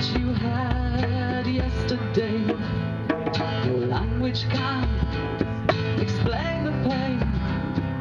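A woman singing live while strumming an acoustic guitar, with low bass notes underneath.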